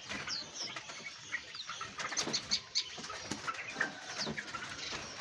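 Many small caged songbirds chirping and calling over one another, in short chirps and quick falling whistles.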